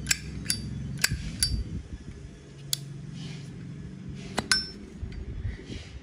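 Zippo lighter's hinged metal lid flicked open and snapped shut, about seven sharp metallic clinks with a brief ring over the first five seconds, over a low steady hum.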